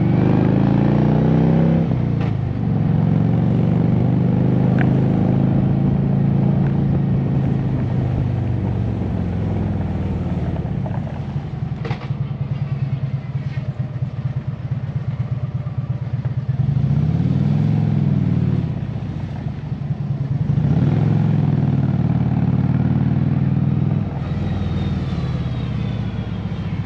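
Harley-Davidson V-twin motorcycle engine running under way, its pitch falling as the throttle comes off in the first couple of seconds, then holding. About two-thirds through it swells and drops, then picks up again. Wind and road noise run underneath.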